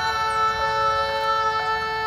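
Live band music: one long note held steady in pitch, with no drums.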